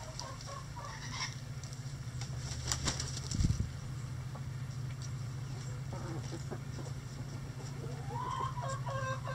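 Bantam chickens in a coop run: a brief rustle of clicks and a low thump about three seconds in, then near the end a chicken starts a rapid pulsed clucking call that rises in pitch, over a steady low hum.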